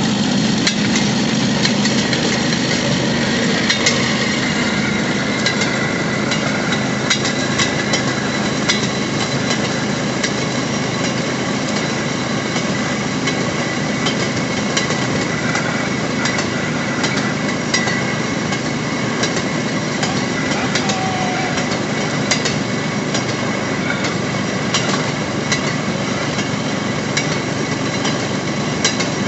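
Railroad speeder rolling along the track: its small engine runs steadily under a constant rumble, with irregular clacks of the steel wheels on the rails.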